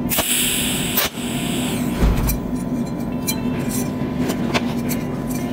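Cold welding machine's tungsten electrode firing a spot weld on thin metal wire: a hissing, crackling burst in the first second that ends in a sharp click, over a steady low hum with scattered small clicks.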